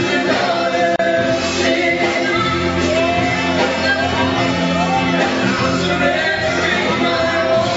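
Live worship music: a band playing steadily with a voice singing over it.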